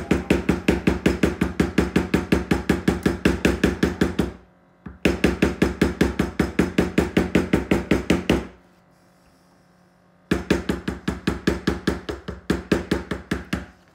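A white poly mallet striking a leather stamping tool, tooling a pattern into a leather sheath blank. The strikes are quick and even, about six a second, in three runs that pause about four seconds in and again about eight and a half seconds in.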